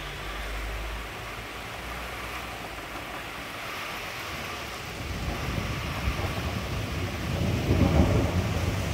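Food sizzling in a frying pan, a steady rain-like hiss, with a low rumble that builds from about halfway in and is the loudest sound near the end.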